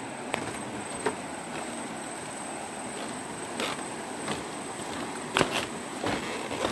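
Steady rush of a swollen, muddy river, with irregular knocks and creaks of footsteps on a woven bamboo suspension bridge. A thin, steady high tone runs beneath.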